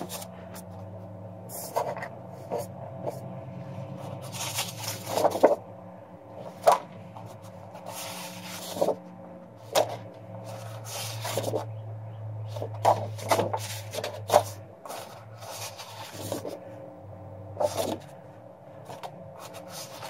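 Sheets of paper being handled and shuffled on a wooden workbench: rustles and light knocks at irregular intervals, some louder rustling bursts, over a faint steady low hum.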